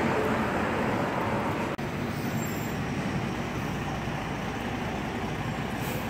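Steady city traffic noise, with a brief break about two seconds in.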